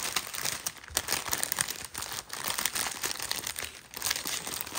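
Small plastic bags of diamond-painting drills crinkling and crackling as they are handled over the canvas's plastic cover, in irregular bursts.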